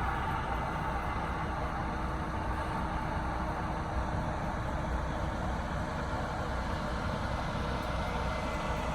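Combine harvester running steadily, a constant engine and machinery drone with a low rumble and faint steady whine.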